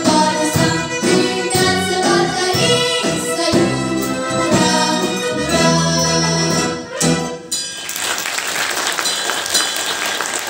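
Girls' vocal group singing the final bars of a song with a military wind band and drum kit, ending on a held chord about seven seconds in. The audience then breaks into steady applause.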